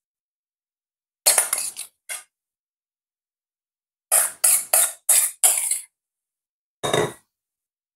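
Metal utensil clinking against ceramic and metal bowls in short sharp taps. There are a few clinks a little after a second in, a quick run of five from about four to six seconds, and a single one near seven seconds.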